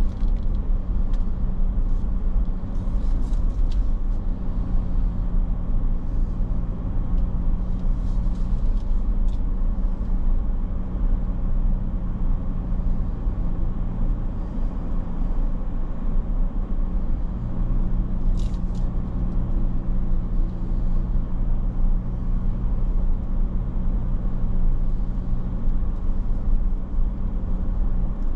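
A vehicle driving on city roads: a steady low engine drone and road rumble, its pitch shifting a little partway through.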